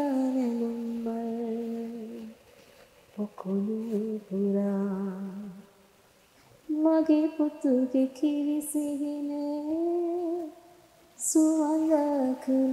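A woman singing a slow melody unaccompanied, in long held notes that glide gently, in short phrases with brief pauses between.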